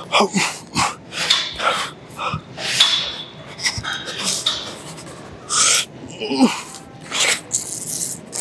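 A man breathing hard through a set of pull-ups: a quick run of sharp, hissing breaths, with a short grunt about six and a half seconds in.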